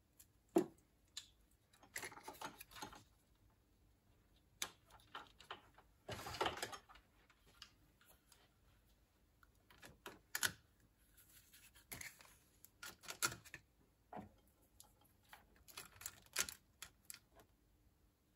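Hand work on car wiring: scattered light clicks, taps and short scrapes of wire and small tools being handled, with a longer rustle about six seconds in.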